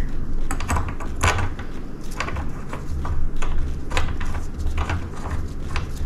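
Irregular light metal clicks and knocks over low bumps: a motorcycle fork top cap being handled and threaded by hand into the top of a fork tube.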